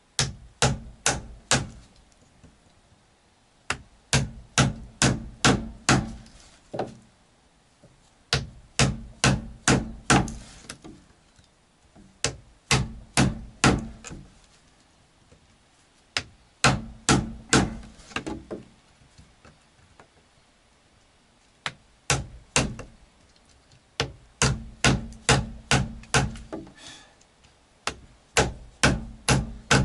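Quick blows of a hand tool on wood, in about eight runs of four to eight strikes at roughly three a second, with short pauses between runs: the wood at a log hut's door sill being trimmed by hand.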